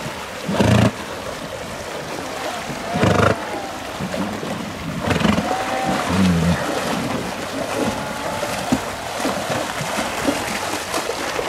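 A horse swimming through a pool, water splashing and churning around her body, then her hooves splashing in the shallow water as she wades out near the end. Two louder low thumps come about a second and three seconds in.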